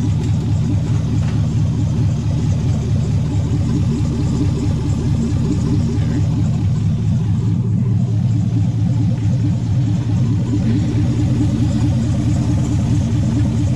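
LS V8 in a swapped Camaro idling steadily, warmed up to about 160 degrees.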